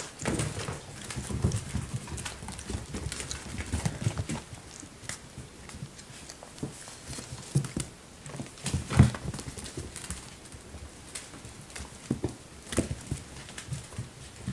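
Young puppies' paws and claws pattering and clicking irregularly on a hard floor as they play and tussle among toys, with scattered knocks and one louder thump about nine seconds in.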